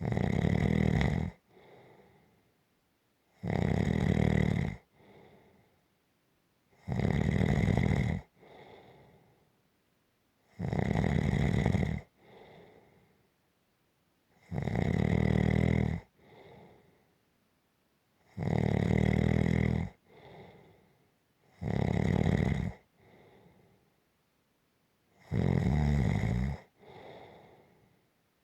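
Rhythmic snoring: eight loud snores about every three and a half seconds, each lasting about a second and followed by a fainter breath.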